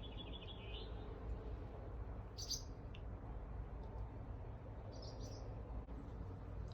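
Swallows chirping near their nest: a quick run of short high chirps at the start, then single brief chirps about two and a half and five seconds in.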